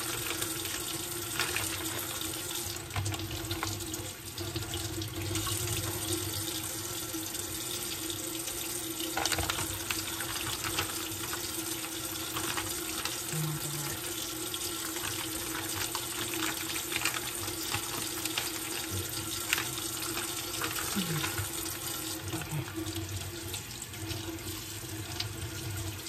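Kitchen faucet running steadily into the sink as raw steak is rinsed under the stream, with occasional small clicks from handling the meat and its plastic packaging.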